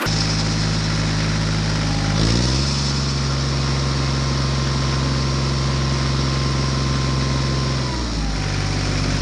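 Small engine running steadily, revving up about two seconds in, holding the higher speed, then dropping back to idle near the end.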